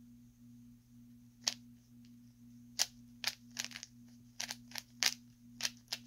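A plastic 3x3 Rubik's cube being turned by hand: sharp clicks as the layers snap round, a single one about a second and a half in, then coming faster and more often from about three seconds on. A steady low hum runs underneath.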